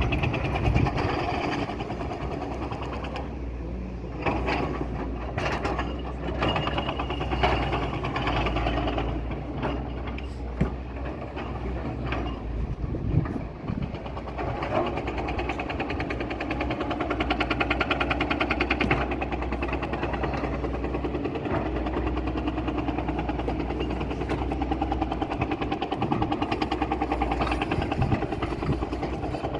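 Volvo excavator's diesel engine running steadily under work, with scattered knocks and clanks in the first half.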